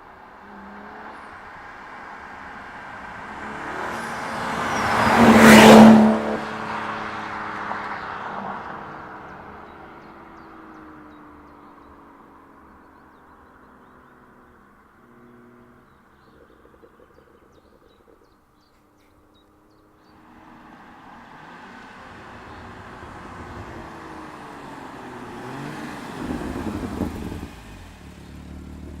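BMW F30 335i's turbocharged 3.0-litre straight-six, breathing through a Remus exhaust from the catalytic converter back, driving past: it builds to a loud pass about five seconds in, then fades away with falling engine tones. After a short lull the car approaches again and passes near the end.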